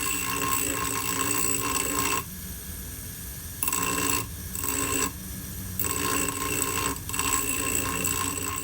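A grinding wheel runs with a steady whine while a steel flatter head is pressed against it to radius its struck end. The harsh grinding noise stops and starts again several times as the steel is lifted off the wheel and put back.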